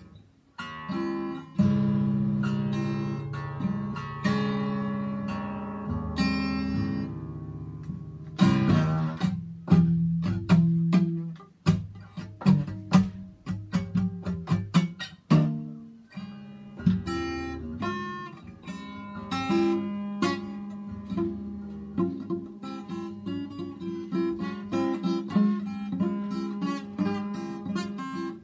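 Acoustic guitar played solo. Long ringing strummed chords open it, then from about eight seconds in come sharp separate strums about two a second, and from about halfway on, quicker picked notes.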